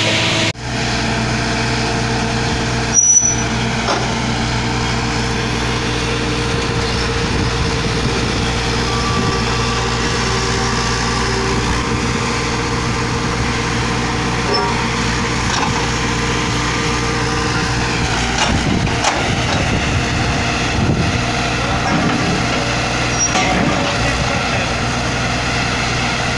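Truck-mounted water-well drilling rig running steadily, its engine and rotary drive holding an even drone. A sharp knock comes about three seconds in.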